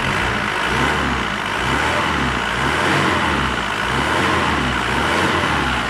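Mitsubishi 4D56 2.5-litre four-cylinder turbodiesel running steadily on freshly installed injectors, no longer misfiring. The owner takes it that a piece of carbon debris lodged under a valve has been blown out through the exhaust.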